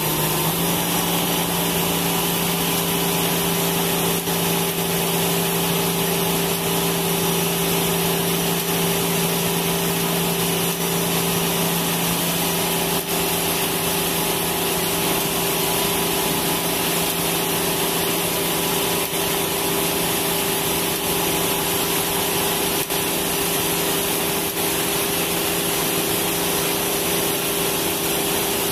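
Concrete mixer truck running steadily while it discharges concrete down its chute: a constant engine hum under a dense rushing, scraping noise. The hum shifts pitch slightly about twelve seconds in.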